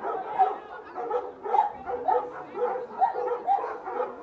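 Dogs barking repeatedly, about two barks a second.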